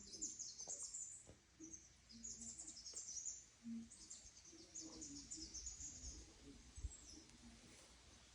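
Faint birds chirping, many short high calls repeated irregularly, with a soft low hum underneath.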